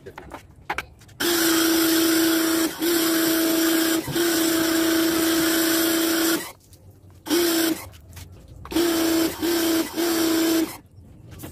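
Pressure washer running in bursts as the spray trigger is squeezed and released: a steady motor-and-pump hum with the hiss of the water jet on a smoker's steel chamber. It starts about a second in and runs for about five seconds with two brief dips, then comes back in a short burst and a longer one that stops near the end.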